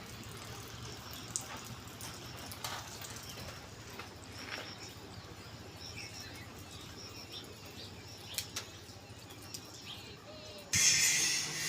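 Quiet outdoor background with faint, scattered bird chirps and a few light clicks. About a second before the end, a much louder, noisy sound cuts in suddenly, leading into music.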